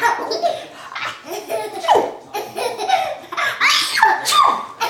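People laughing hard, a toddler's laughter among them, broken by two sharp calls that fall in pitch, about two and four and a half seconds in: the toddler's fake "achoo" sneezes.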